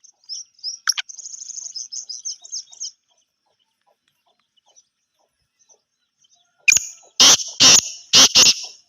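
Teetar (francolins) calling: a run of rapid high chirps for the first three seconds, then, after a pause, four loud harsh calls in quick succession near the end.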